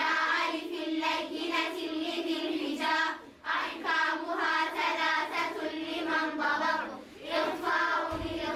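A group of voices chanting together in unison over a steady held tone, with short breaths or pauses about three seconds and seven seconds in.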